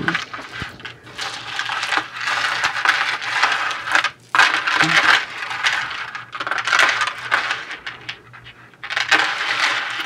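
Silver-tone metal necklace of bar-link chain and round metal beads jingling and clinking against itself as it is untangled and lifted by hand, in bursts of rattling with short pauses.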